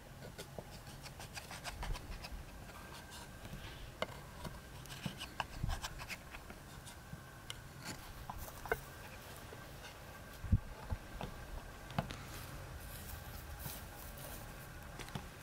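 Knife blade scraping and ticking through thick batter against the bottom of a cast-iron skillet as the batter is scored into pieces, with scattered small clicks. A single dull thump about ten and a half seconds in is the loudest sound.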